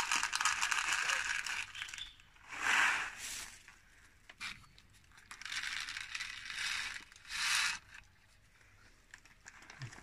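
Plastic bird-feed bag crinkling and rustling as it is handled, in several separate bursts.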